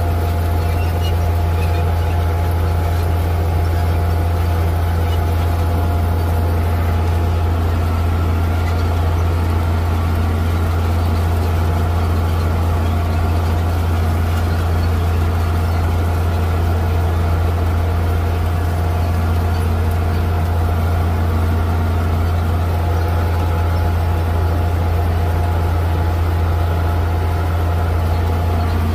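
Tractor diesel engine running steadily under load while pulling a corn planter, heard from inside the cab as a loud, even, low drone with a steady hum.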